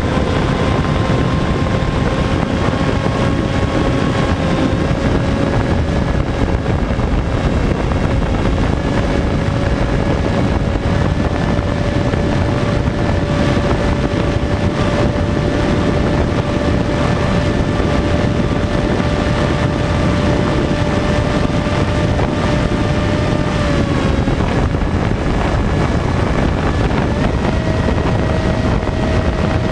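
Sky Surfer RC glider's electric motor and propeller running, a steady whine over heavy wind rush on the onboard microphone. Near the end the pitch drops briefly, then steps up higher as the throttle changes.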